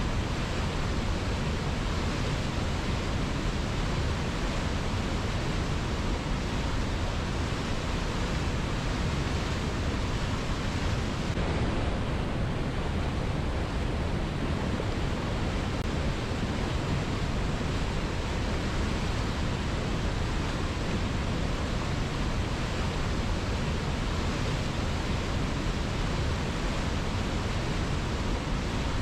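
A strong river flowing: a steady, even rush of water that does not change in level.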